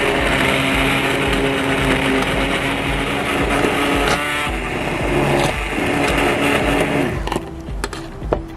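Handheld immersion blender running in a metal saucepan of cream sauce: a steady motor whine with churning liquid that cuts off about seven seconds in, followed by a few sharp knocks near the end.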